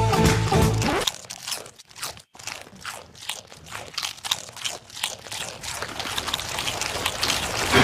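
Music cuts off about a second in, followed by rapid, irregular crunching of a goat chomping Doritos tortilla chips.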